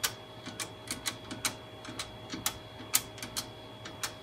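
Push-button keypad of a GTE payphone being pressed as a number is dialed: about a dozen sharp, irregularly spaced clicks.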